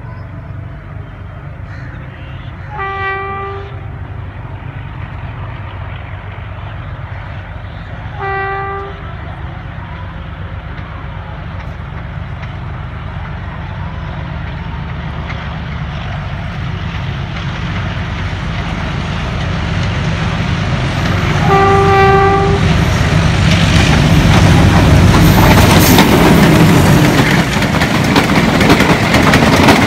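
Diesel locomotive hauling a passenger train sounds its horn three times as it approaches, two short blasts a few seconds apart and then a slightly longer one. Its engine and wheel noise grow steadily louder until the coaches roll past close by with a clatter on the rails near the end.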